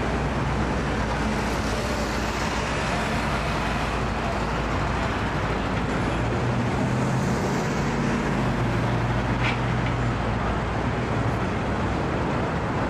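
Steady engine and traffic noise: a vehicle motor running with a low hum under a continuous rumble.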